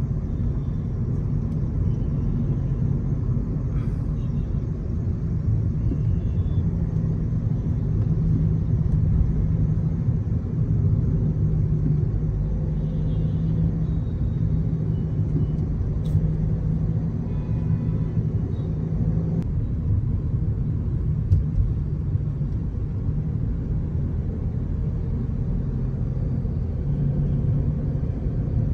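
Mercedes-Benz A200d diesel car heard from inside the cabin while driving: a steady low rumble of engine and road noise. A low, even drone stands out for several seconds in the middle.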